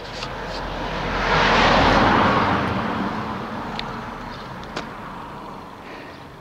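A car driving past on the road, its tyre and engine noise swelling to a peak about two seconds in and then fading away.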